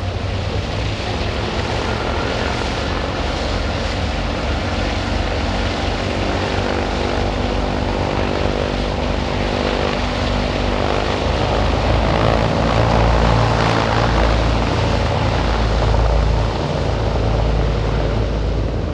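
Lockheed Super Constellation's four Wright R-3350 Duplex-Cyclone radial engines running steadily as the airliner rolls slowly past on the runway, a propeller hum with a clear pitch. It grows louder about twelve seconds in, then drops back a few seconds before the end as the aircraft moves away.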